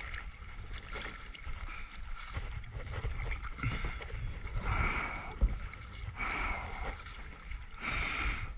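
Paddling a plastic kayak through weedy pond water: hand and paddle strokes splashing and swishing, with a stronger splash every second or so.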